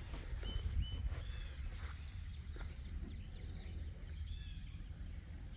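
Outdoor birds chirping in a few short, high calls, two brief notes early and a small cluster about four seconds in, over a steady low rumble.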